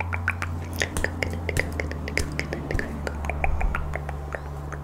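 Close-miked wet mouth sounds: rapid, irregular tongue and lip clicks and small pops making up the 'coconut rain' trigger, over a steady low hum.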